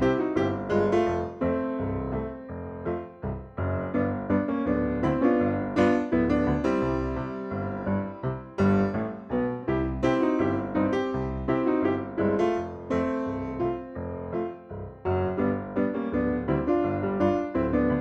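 Background piano music with clearly struck notes.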